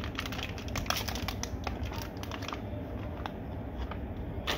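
Quick light clicks and ticks of small parts of a disassembled electric water pump being handled on a workbench, with one louder click near the end. A steady low hum runs underneath.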